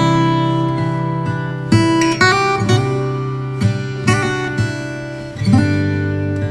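Background music of acoustic guitar chords, a new chord struck every second or two and left to ring.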